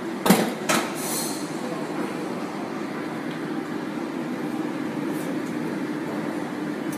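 Steady restaurant room noise, a low hum with a hiss over it, with two sharp knocks close together under a second in.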